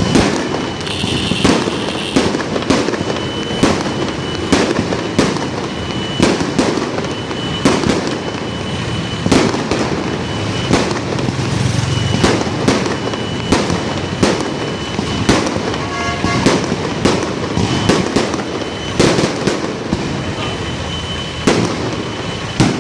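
Aerial fireworks bursting overhead: an unbroken, irregular string of sharp bangs, about one or two a second, over a constant background of noise.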